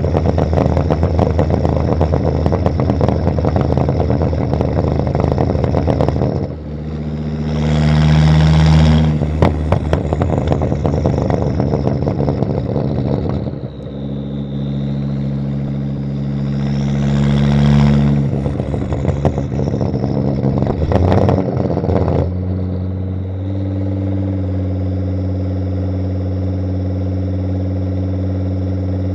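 Turbocharged inline-five of a Volvo S60 2.5T with a catless exhaust, running hard with crackles, then rising in revs twice with pops and crackles in between. It settles into a steady, even drone for the last several seconds.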